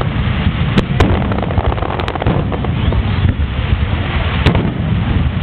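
Aerial fireworks going off in a display: about five sharp bangs, two quick pairs near the start and another later, over a continuous low rumble.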